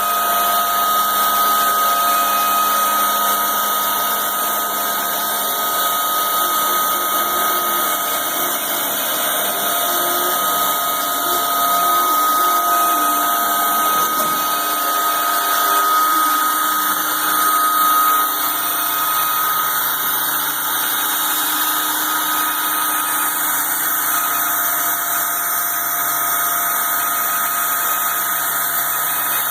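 DIY CNC router running while it resurfaces its bed: a steady spindle whine over a constant machine hum, with lower stepper-motor tones that change pitch in steps and glide as the axes move. The high whine fades out a little past halfway.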